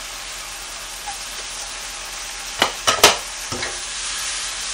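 Carrots, scallion and garlic sizzling steadily in hot oil in a frying pan while being stir-fried, with a utensil knocking sharply against the pan four times past the middle, the third knock the loudest. The heat is high enough that the cook decides to turn it down.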